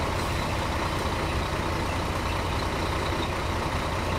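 Scania 4-series truck's diesel engine idling steadily with a low rumble.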